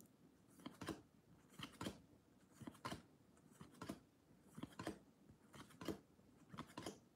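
Soft clicks of trading cards being slid one at a time from the front to the back of a hand-held stack, about once a second.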